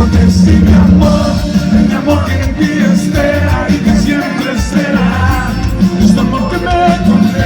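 Pop-rock band music with a steady low bass and drum bed under a wavering melodic line; no clear sung words.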